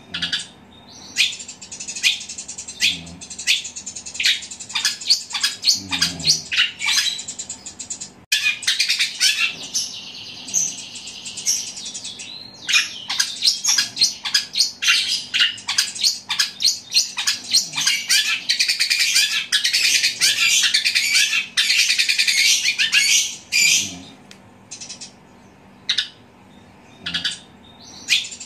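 Caged long-tailed shrike (cendet) singing a loud, fast chattering song of rapid short notes in long runs, with chirps mimicking a Eurasian tree sparrow. There is a brief pause about twelve seconds in, and the notes thin out near the end.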